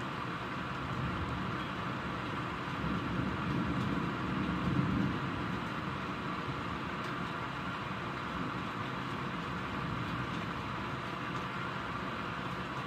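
Steady rain during a thunderstorm, with a low rumble of thunder swelling and fading about four to five seconds in.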